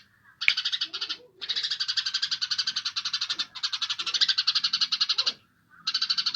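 Songbird masteran recording: a bird giving fast, rattling trills of rapidly repeated high notes in four bursts of about one to two seconds each, separated by short pauses.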